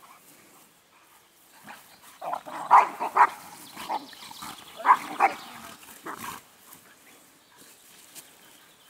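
Two dogs, a tan American Staffordshire Terrier and a black dog, play-fighting and giving short barks: a cluster about two to three seconds in, another about five seconds in, and a last one about six seconds in.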